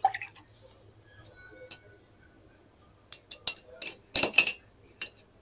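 Sharp clinks of a paintbrush knocked against a hard container: scattered single clinks, then a quick run of them and a short rattle about four seconds in.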